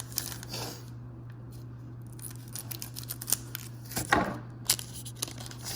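Trading cards being handled and flipped through one after another: a run of quick sharp clicks and flicks, with a couple of brief swishes as cards slide across each other, over a steady low hum.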